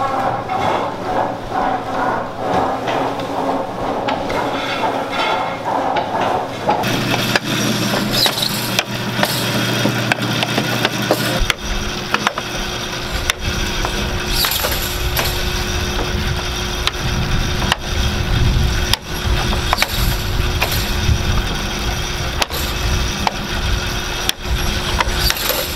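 Barn gutter cleaner running: its chain and paddles scrape and click as they drag manure along the gutter and up the elevator, dropping it into the manure spreader. A deeper steady drone joins about eleven seconds in.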